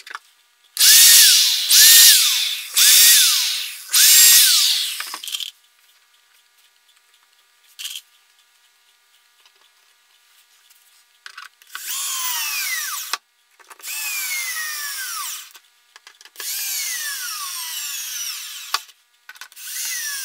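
Corded power drill driving screws into a wooden floorboard: four short bursts, then after a pause four longer runs, the motor's pitch dropping in each as the screw bites into the wood.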